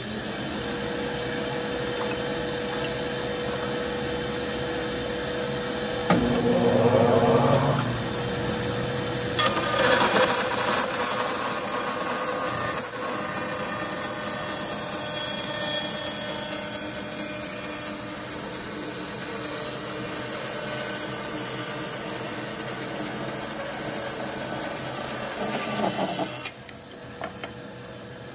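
Bandsaw with a 1¼-inch Laguna Resaw King blade starting up and resawing a board of dogwood, running steadily with louder spells about six and ten seconds in as the blade works through the wood, then cut off suddenly near the end.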